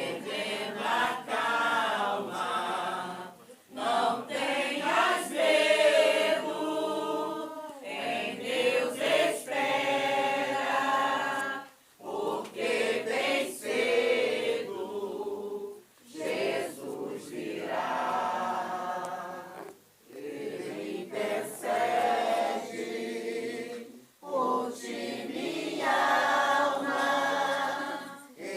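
A group of voices singing without instruments, in phrases of a few seconds each with short pauses between them.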